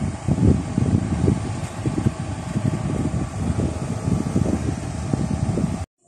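Wind buffeting a handheld phone's microphone: a loud, uneven low rumble in gusts that cuts off suddenly near the end.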